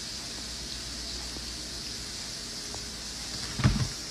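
Steady faint hiss, with one short, loud low thump near the end.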